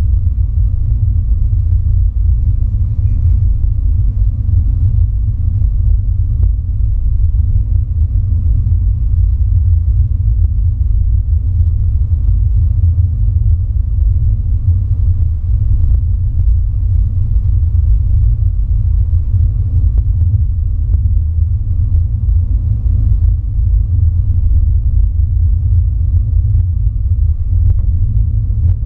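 Steady low rumble of a car driving along a highway, road and engine noise heard from inside the cabin.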